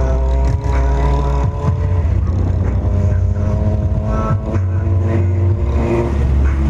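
Loud bass-heavy music from a car sound system, its deep bass cutting in and out every second or so, over a vehicle engine running.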